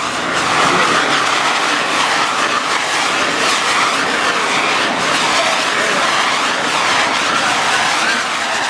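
Firework fountains and crackers going off together, a dense, steady crackling and hissing.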